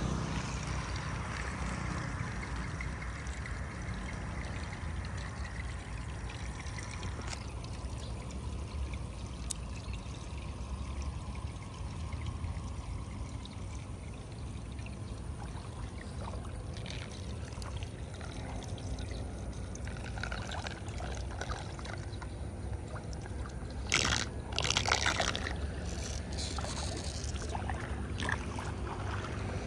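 Floodwater flowing and trickling steadily, with a low rumble underneath. A few loud splashes come in a short cluster near the end.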